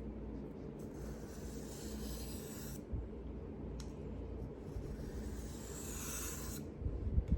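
Knife blade drawn across a sharpening surface in two long scraping strokes, with a few low knocks near the end.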